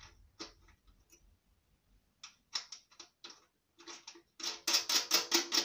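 Small metallic clicks and taps as the fuel tank's mounting nut is fitted on a BSA Bantam D7, ending in a quick, even run of loud clicks, about six or seven a second.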